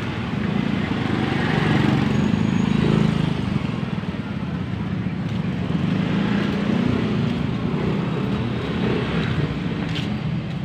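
Steady low rumble of motor-vehicle engine noise, with a few light clicks near the end.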